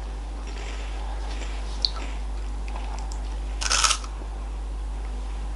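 Quiet eating sounds over a steady low hum: a sharp click about two seconds in, then a short crunch just before four seconds in as a chocolate wafer is bitten.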